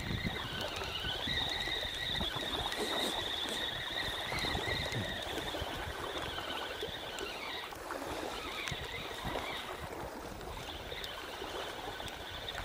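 Spinning reel on a feeder rod being cranked in, a wavering whine that stops about eight seconds in, over small waves lapping at the sandy shore.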